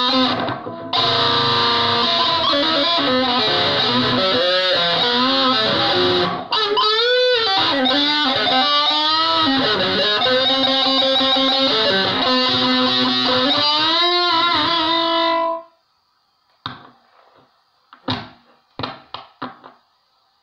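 Electric guitar played loud through heavy distortion, with held notes and bent, wavering pitches, cutting off suddenly about fifteen seconds in. A few short knocks follow in the quiet.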